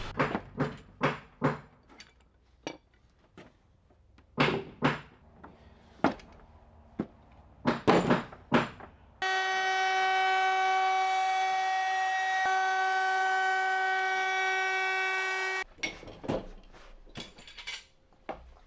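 A string of sharp knocks and clicks, then a compact trim router cutting along the edge of a wooden hull plank, running with a steady high whine for about six seconds before cutting off suddenly; a few more knocks follow.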